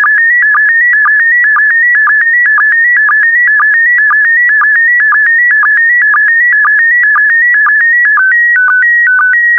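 Slow-scan television signal in PD120 mode: a loud, shrill electronic tone that holds a high pitch and drops briefly about twice a second at each line-sync pulse, as it sends the last lines of an image. After about eight seconds the tone begins stepping between two pitches, as the picture content changes on the final lines.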